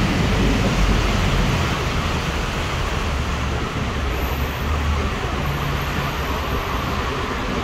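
Steady city traffic noise: a continuous rumble and hiss of cars and other vehicles on a busy multi-lane road.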